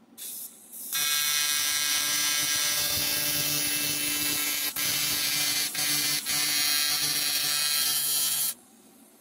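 TIG welding arc on an aluminium intake pipe: a steady electric buzz that starts about a second in, after a brief hiss, breaks off for a moment two or three times, and stops suddenly near the end.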